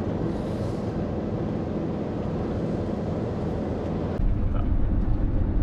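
Motorhome driving noise heard inside the cab: a steady low engine and road rumble. About four seconds in it changes abruptly to a louder, deeper rumble.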